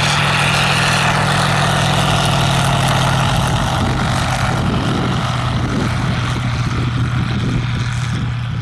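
Engine and propeller of an ultralight Caudron G.III replica running steadily as the biplane flies low past. The engine note drops a little in pitch about three and a half seconds in, and the sound eases off slightly as it settles onto the grass.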